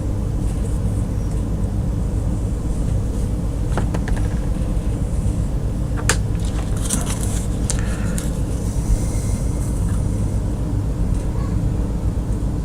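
Steady low electrical or mechanical hum. A few small clicks and a short rustle come about four and six seconds in, as wires and tools are handled.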